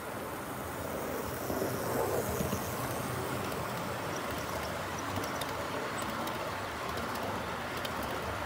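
Liliput model container train rolling past on its track: a steady rolling rumble of wheels and running gear, a little louder about two seconds in, with faint scattered clicks.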